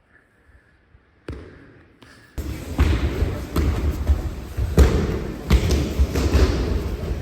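Many people training aikido on mats in a large hall, with irregular thuds of bodies falling and rolling on the mats, starting suddenly a little over two seconds in.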